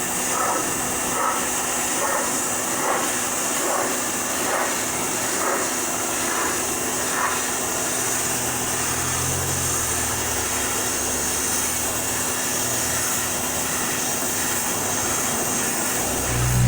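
Greenworks electric pressure washer spraying a jet of water: a steady hiss throughout, with a low hum coming and going in the middle.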